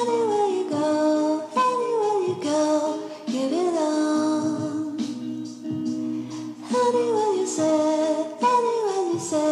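Background music: a melody of sliding, gliding notes over held chords.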